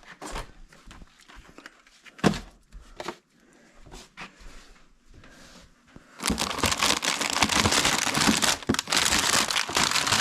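Plastic grocery bags being handled while groceries are unpacked: scattered light rustles and knocks with one sharp knock a little after two seconds, then loud, continuous crinkling from about six seconds in.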